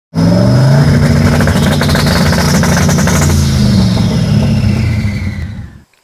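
Car engine revving loudly, with a high whistle that climbs to a peak about three seconds in and then falls away, and a run of sharp crackles in the middle; the sound cuts off suddenly near the end.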